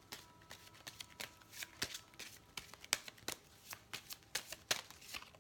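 A deck of oracle cards being shuffled by hand: a steady run of soft, irregular card clicks and flicks, several a second.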